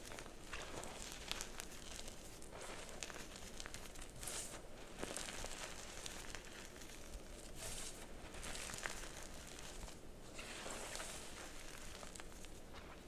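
Dyed gym chalk blocks crunching and crumbling as they are crushed: a run of gritty crunches and small sharp cracks, with a louder crunch every second or two. The chalk is crunchy yet soft.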